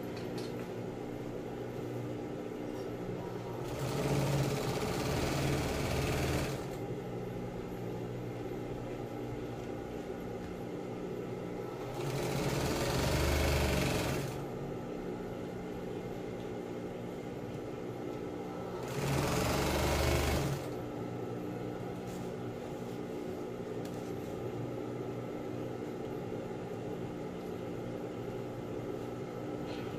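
Industrial sewing machine stitching binding tape onto plastic tarpaulin in three short runs, of about two and a half, two and one and a half seconds, with its motor humming steadily between runs.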